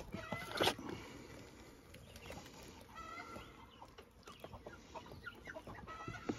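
Chickens clucking now and then in the background. There is a brief louder handling noise less than a second in, as the innards are pulled out of a chicken carcass by hand.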